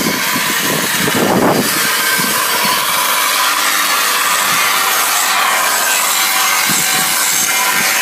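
A power tool abrading the painted metal of an armoured vehicle to strip off painted markings: a steady, harsh scraping hiss.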